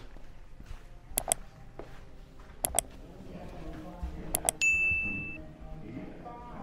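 Three sharp double clicks about a second and a half apart, then a single bright bell-like ding that rings for under a second, over a faint background murmur.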